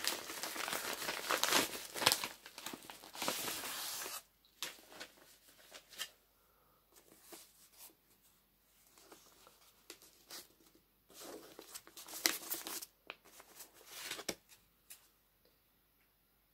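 A padded mailer being torn open and crinkled for the first four seconds. After that come scattered rustles and crackles of paper and packaging as the wrapped book is handled, with another burst of rustling about eleven seconds in.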